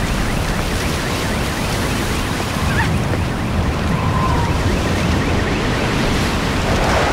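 Strong storm wind blowing in heavy, continuous gusts.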